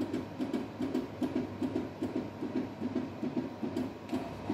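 Fujifilm Dri-Chem NX500 chemistry analyser's internal mechanism running while it tests a serum sample, a rhythmic mechanical whirring of about three pulses a second with light clicks.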